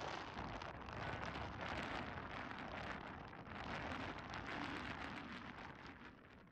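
Strong wind gusting across the microphone of a phone filming from an exposed pier, a rushing, buffeting noise that swells and drops with the gusts and fades out near the end.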